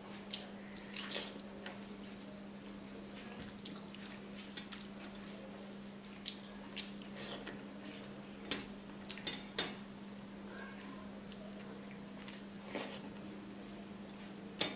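Wet eating sounds: a ripe mango squeezed and mashed into rice by hand on a steel plate, with chewing and scattered short lip-smacking clicks, over a steady low hum.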